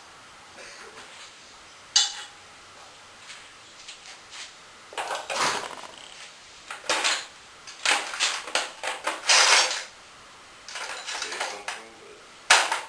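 Metal engine parts and hand tools clinking and clattering while a small engine is taken apart, in irregular bursts, with a sharp clank about two seconds in and another near the end.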